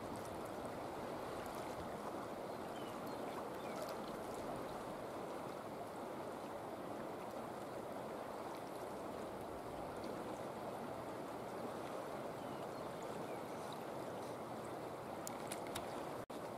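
River water flowing, a steady even rush that cuts out for an instant near the end.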